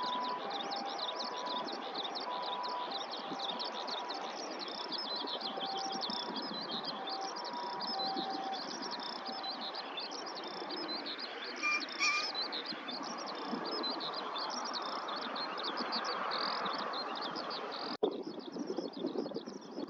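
Continuous rapid high trilling of small birds in riverside grass, over a steady low background rumble; about twelve seconds in a green pheasant gives a short loud crow. In the first half a faint two-pitch beeping alternates in the background, and near the end the sound changes abruptly.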